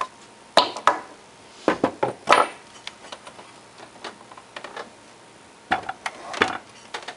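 Scattered knocks and metallic clinks of tools and metal motor parts being set down and handled on a workbench, in two clusters with a quiet stretch between.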